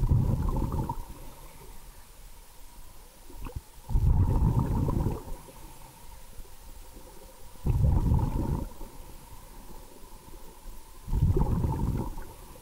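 Scuba diver's exhaled bubbles bubbling out of the regulator, heard underwater: four exhalations about every four seconds, each lasting about a second, with a faint steady whine under them.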